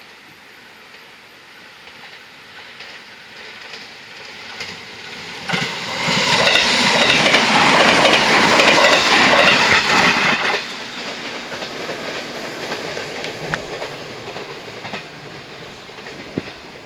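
Electric train passing at speed, its wheels clattering over the rail joints. It builds for a few seconds, is loudest from about six to ten seconds in as the cars go by, then drops off suddenly and fades away.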